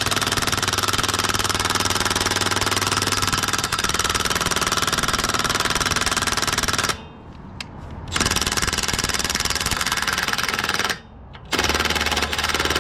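Impact wrench hammering in three bursts: one about seven seconds long, then a shorter one and a brief one after short stops. It is driving a spindle nut onto repaired axle threads and struggling, because the wrench is set to its lowest setting.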